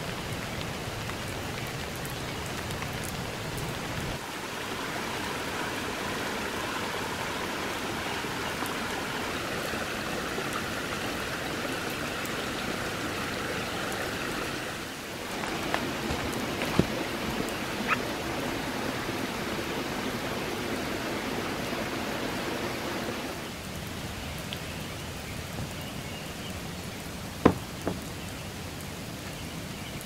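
Steady patter of rain and running water trickling over leaf litter, shifting in tone a few times. A few light clicks in the middle, and near the end a single sharp knock of a wooden field gate shutting.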